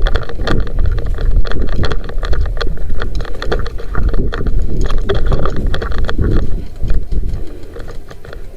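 Rapid, irregular footfalls and rattling gear, with wind buffeting the microphone, as the camera-wearing player moves quickly.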